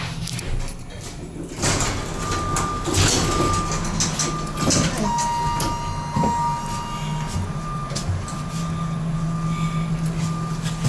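Metropolitan hydraulic elevator cab with its doors sliding and knocking, while a short electronic beep repeats about twice a second, as the door-open and door-close buttons are pressed. A longer steady tone sounds about five seconds in.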